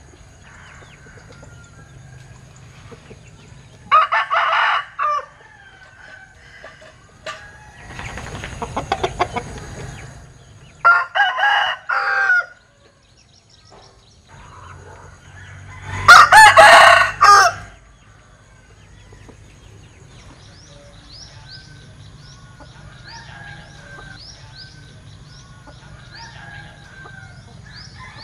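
A rooster crows three times, about 4, 11 and 16 seconds in, the last crow the loudest. A noisier rattling stretch comes between the first two crows. Faint, repeated high chirps from small birds run through the last several seconds.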